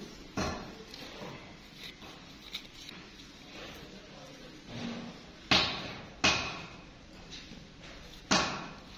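Heavy blows struck on metal in a wheel-hub workshop, each with a short metallic ring: one knock at the start, light taps through the middle, then three hard blows about a second apart in the second half.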